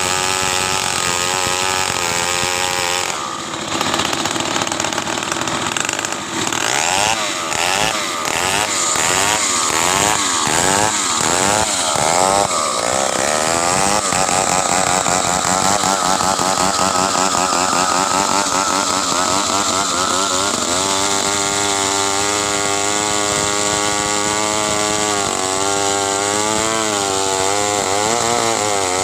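Stihl two-stroke chainsaw running at high revs while cutting wood, its engine pitch wavering up and down as the chain loads in the cut and frees again. There is a short dip in loudness about three seconds in.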